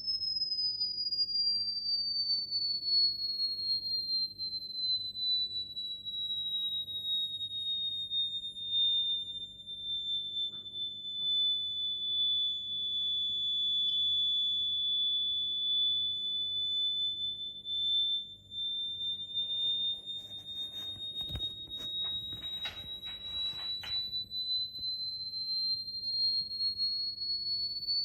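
A single high electronic sine tone, held continuously while it glides slowly down in pitch and then back up again. A few short clicks and rustles come about three quarters of the way through.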